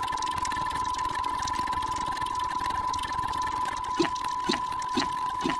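A jumble of many overlaid video soundtracks playing at once: a steady high tone runs throughout over a dense, noisy clatter. From about four seconds in, a short low pulse with a click repeats about twice a second.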